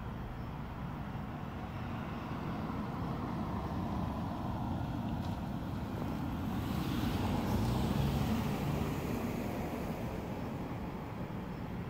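Steady outdoor background noise with a vehicle passing, swelling to its loudest with a tyre hiss around seven to eight seconds in and then fading.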